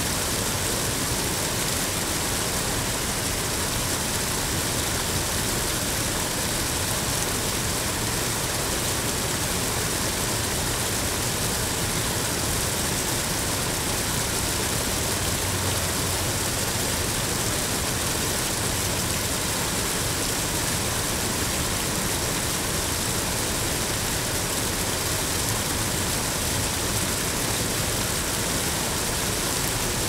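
Steady rushing of flowing water, an even hiss with no breaks or changes.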